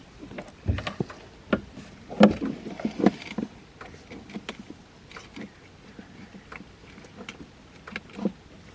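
Irregular clicks, taps and knocks from wires, connectors and plastic parts being handled, with the loudest knocks about two and three seconds in.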